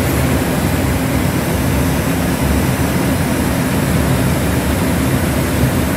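Steady low rumble of an Airbus A380's four jet engines as it passes high overhead.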